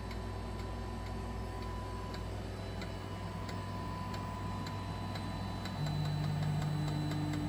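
Stable Micro Systems texture analyser running a penetration test on a cornstarch pudding: light regular ticking about twice a second, joined about six seconds in by a louder steady motor hum as the probe drives.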